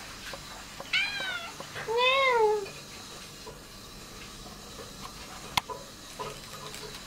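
Tabby kitten meowing twice, about a second apart, each meow rising then falling in pitch, the second one longer. A single sharp click follows a few seconds later.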